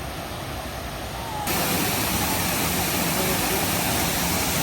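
Waterfall's steady rush of falling water, stepping up in level about a second and a half in, with faint voices in the background.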